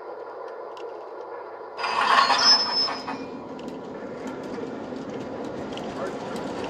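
MTH model subway trains running on a model railway layout: a steady hum of motors and wheels on track, with a brief loud burst carrying a high-pitched squeal about two seconds in, then the running noise swells as a train comes closer.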